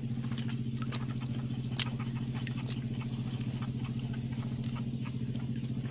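An engine idling steadily: a constant low drone with a fast, even pulse, with scattered small clicks over it.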